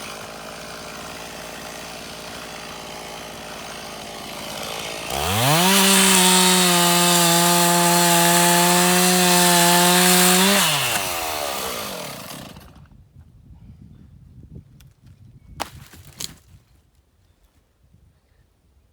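Two-stroke Stihl chainsaw idling, then revved sharply to full throttle about five seconds in and held steady for about five seconds. It drops back to idle and is switched off, falling quiet apart from a couple of faint knocks.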